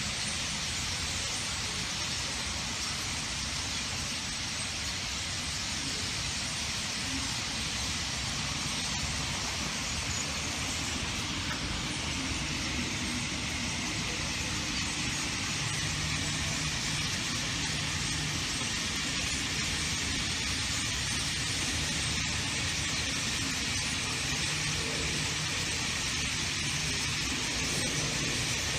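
Steady low city traffic rumble under a dense high-pitched din, the massed chattering of a huge winter roost flock of starlings, growing slightly louder.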